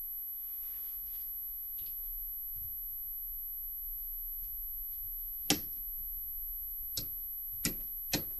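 Low steady hum, broken in the second half by four sharp knocks or clicks, the first the loudest, the other three coming closer together.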